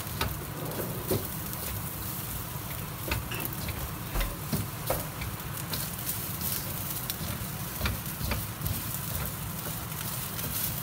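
Fried rice with beef and vegetables sizzling in a hot stainless steel pan while a spatula stirs it, with scattered scrapes and clicks of the spatula against the metal through a steady frying hiss.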